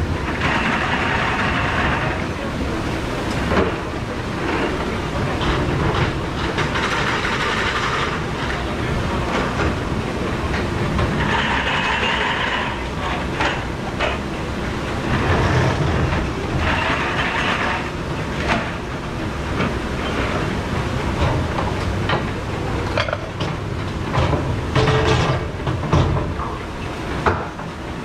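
A commercial dish machine running with a steady wash noise, while plastic dish racks and dishes clatter and knock as they are handled. A louder hiss swells up four times.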